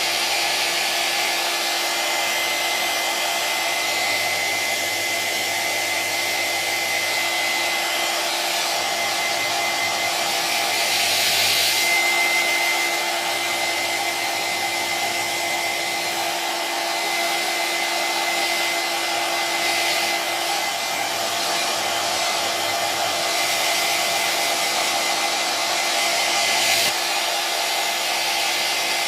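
Electric hair dryer running steadily: a constant rush of air with a thin high whine. It grows briefly louder and brighter about eleven seconds in.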